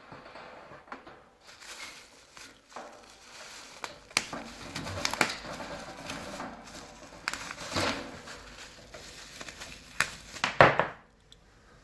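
Packaging being handled: packing material crinkling and rustling, with scattered sharp clicks and knocks. The loudest crackle comes about a second before the end.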